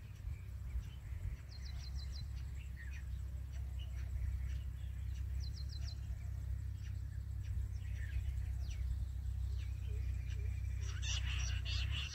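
Birds calling in scrub: runs of four quick high notes repeat every few seconds among scattered chirps, over a steady low rumble. About a second before the end, a dense, fast twittering chorus begins.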